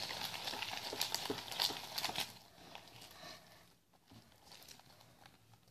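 Light crackling and clicking handling sounds from hands working with slime-making materials and a plastic detergent bottle, busiest for the first two seconds, then much fainter.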